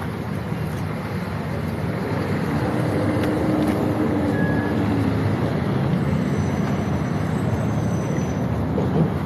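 City street traffic: a steady rumble of passing vehicles, with a short low hum from one of them about three seconds in.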